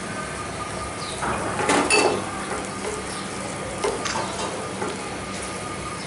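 Wooden spatula stirring and scraping shrimp, capsicum and onion around a frying pan over a steady sizzle. The loudest scraping comes about two seconds in, and a few sharp knocks of the spatula against the pan follow around four seconds.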